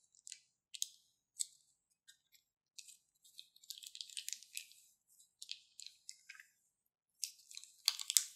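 Plastic piping bag crinkling and crackling as it is squeezed and wrung out, with small wet clicks of slime pushing through the tip. The crackles come in irregular clusters, thickest a few seconds in and again near the end.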